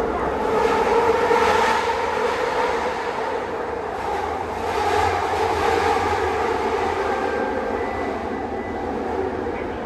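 ART200 metro train running, heard from inside the carriage: loud wheel-on-rail noise with a steady hum from its linear induction motor, swelling about a second in and again around five seconds in.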